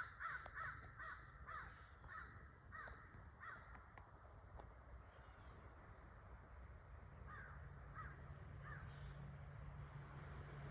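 Faint run of short, harsh animal calls repeated about two or three times a second, dying away after a few seconds, then three more calls near the end. It is the unidentified screaming that the recordist ties to the foxes in the woods.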